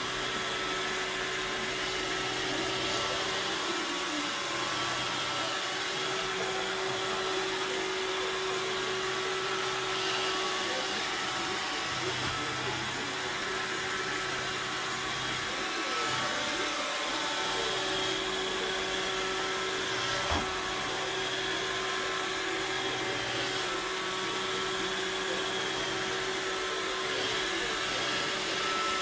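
Robot vacuum cleaner running: a steady motor whir with a constant hum, and a single sharp click about two-thirds of the way through.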